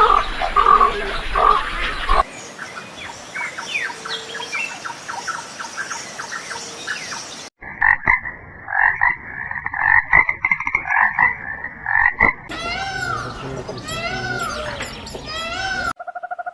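Animal calls in several short recordings cut one after another: first rapid clicking and pulsing calls, then a loud chorus of pulsed calls, then a run of short arching chirps.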